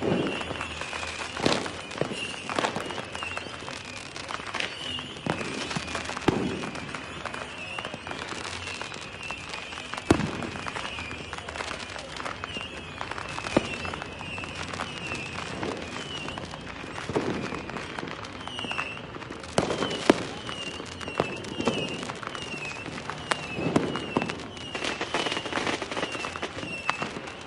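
Fireworks going off: a continuous run of bangs and crackling bursts, the loudest about ten and twenty seconds in. Short high chirping whistles repeat over them throughout.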